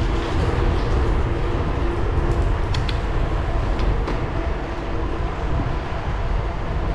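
Mountain bike rolling fast on asphalt inside a stone tunnel: a steady tyre-and-wind rumble with a faint hum, and a few light rattling clicks about halfway through.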